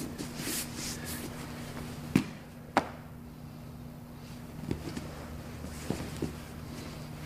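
Cloth gis rustling as two grapplers move against each other on a training mat, with two sharp thuds about two seconds in and a few softer knocks after, bodies and limbs landing on the mat. A faint steady hum runs underneath.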